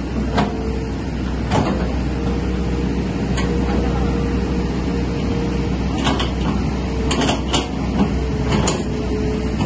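Komatsu excavator running steadily under load, its engine drone carrying a steady whine, with a series of short sharp knocks and clanks, several close together near the end.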